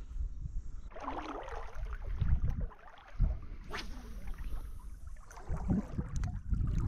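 Wind buffeting the microphone as a constant uneven low rumble, with water sloshing at the lake's edge and a sharp knock about four seconds in.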